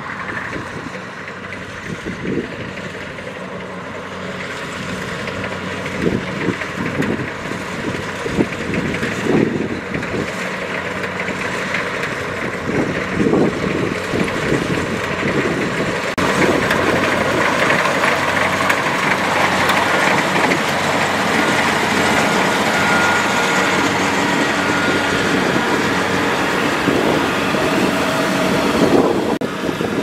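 Kubota rice combine harvester's diesel engine running as it cuts and threshes rice, with irregular knocking and rattling from its machinery. It gets louder about halfway through.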